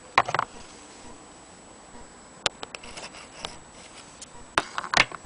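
Irregular light clicks and taps: a quick cluster just after the start, a few sparse ticks midway, and another cluster near the end.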